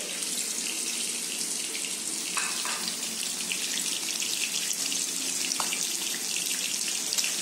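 Fish steaks frying in hot oil in a wok, a steady sizzle with fine crackling.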